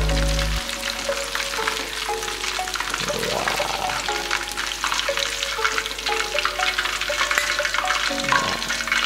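Breaded chicken pieces crackling and sizzling in hot deep-frying oil in a wok, fried crisp and golden brown and being lifted out. A soft background music melody runs underneath.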